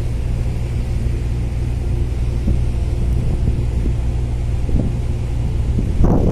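A car ferry's engines running with a steady low rumble, heard from the open deck.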